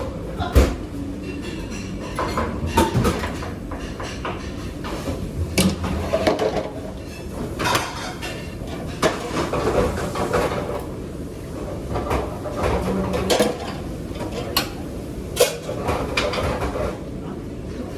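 Pots, pans and metal utensils clattering and clinking in a busy restaurant kitchen, with irregular sharp knocks over a steady background noise.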